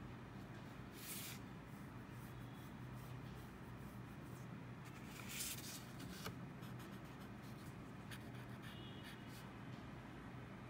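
Black permanent marker scratching on sketchbook paper in short strokes, the longest about five seconds in and a quick run of short ones near the end, over a steady low hum.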